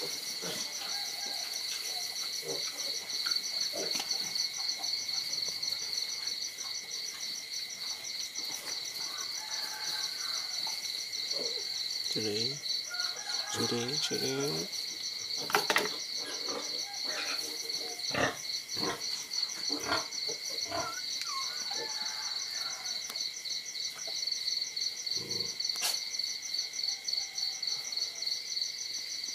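Insects trilling steadily in a fast, pulsing chorus, with a few short faint calls around the middle and a sharp knock about halfway.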